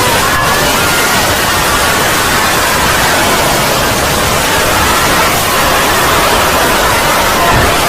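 Loud, steady static-like hiss filling the whole range, with faint wavering tones buried in it.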